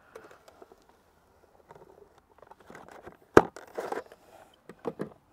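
Scattered plastic clicks and rustles from a blue plastic meat cuber being worked to cut luncheon meat into 8mm cubes, as the plunger is pressed down and the grid plate lifted off. One sharp plastic knock about three and a half seconds in is the loudest sound.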